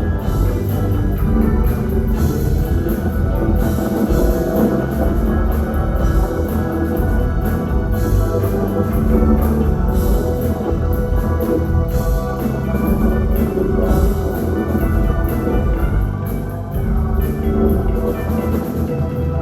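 A band playing rock music, with a drum kit keeping a steady beat under sustained chords.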